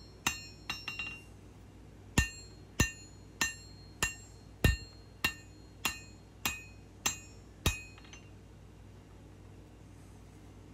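Hand hammer striking hot knife steel on an anvil, drawing down the blade's bevel. A few light taps come first, then about ten steady ringing blows, roughly one every 0.6 seconds, which stop about 8 seconds in.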